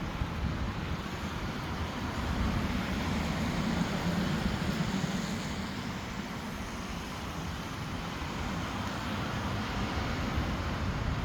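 Steady noise of wind and rough surf, with wind buffeting the microphone.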